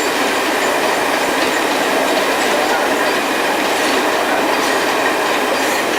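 Steady noise of a train in motion, with faint wheel clicks here and there.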